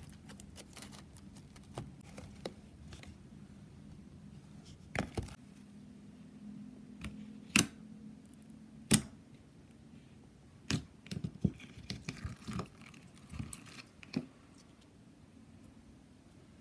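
Clear glue slime being poked and stretched by hand in a plastic container, giving scattered sharp clicks and pops, most of them from about five seconds in.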